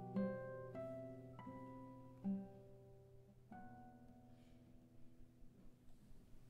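Four classical guitars playing a quiet, sparse passage: a handful of single plucked notes over a low held bass note, each ringing and fading. After about three and a half seconds the last notes are left to die away.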